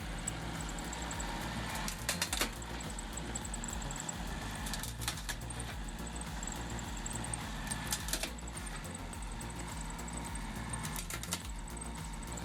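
An engine running steadily, with short clusters of clicks about every three seconds.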